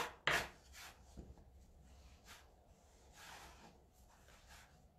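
Hands kneading a soft pastry dough on a bamboo board: short rubbing and pressing strokes, the loudest in the first half-second, then softer ones.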